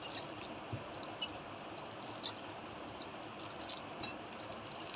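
Faint wet squishing of a bare hand mashing and mixing soft roasted eggplant with oil and chopped onion on a plate, with a few small ticks over a steady low hiss.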